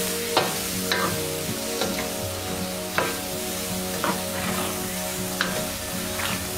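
Wooden spatula stirring pork belly and shrimp paste in coconut milk in a pot, over a steady sizzle. It scrapes and knocks against the pan irregularly, about once a second.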